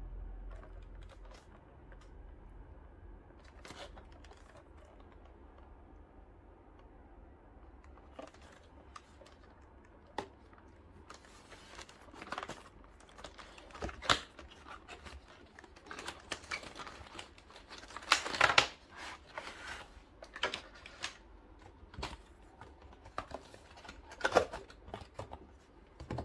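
Cardboard box of a digital coffee scale being handled and opened: scattered taps, scrapes and rustles of cardboard and packaging, getting busier and louder in the second half.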